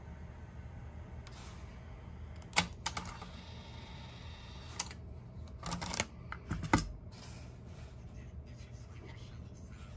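Sharp plastic clicks and a few knocks as the pushbuttons and controls on a 1988 Toyota AM/FM cassette car stereo are pressed and handled, with a cluster of louder knocks about six seconds in, over a steady low hum.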